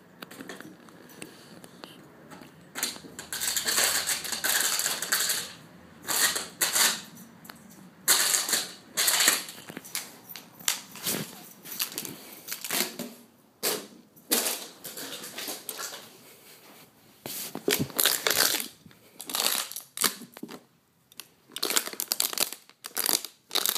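An empty plastic water bottle crackling and crinkling in irregular bursts as a puppy bites and chews it, with brief quiet pauses between bouts.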